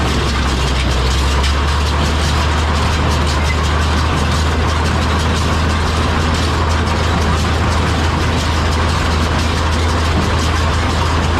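Tractor engine running steadily, with a John Deere small square hay baler working behind it.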